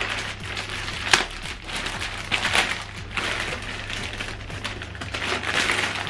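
Plastic bag crinkling and rustling as it is pulled open and handled, with a run of sharp crackles and one louder snap about a second in.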